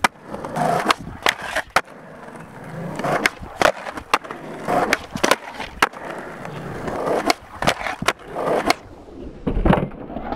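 Skateboard wheels rolling over concrete, with a dozen or so sharp wooden clacks of the board popping and landing, and trucks scraping as they grind along ledge and bowl edges.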